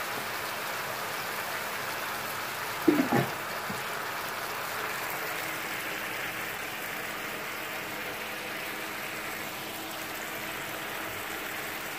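Taro pieces simmering in yogurt liquid in a frying pan: a steady bubbling sizzle as the liquid cooks down. A brief louder sound comes about three seconds in.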